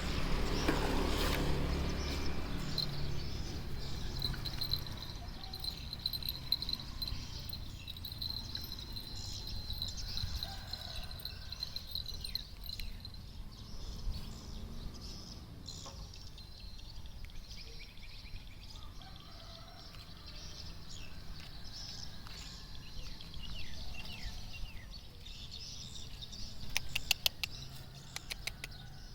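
Outdoor background noise with faint high chirping and warbling, like small birds, and a quick run of clicks near the end.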